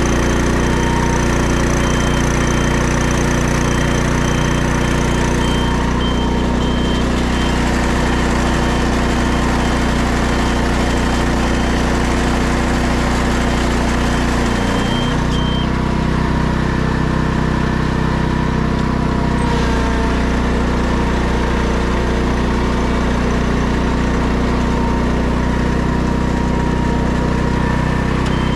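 OREC Weedman SJ800 riding paddy weeder running steadily, its engine a constant drone. A rapid high beeping sounds over it and stops about halfway through.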